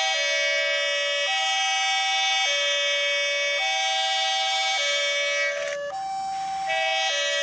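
Two-tone hi-lo siren, alternating between a higher and a lower note about once a second. It breaks off briefly with a short sweep a little before six seconds in, then starts again.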